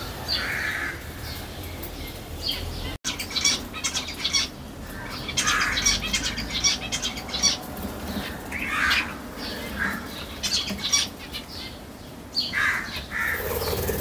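Pet parrots squawking in short, repeated calls, with scattered rustles and clicks among them.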